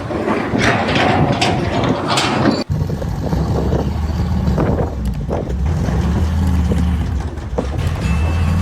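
Noisy clattering that cuts off suddenly about two and a half seconds in, followed by a heavy vehicle engine running with a steady low rumble.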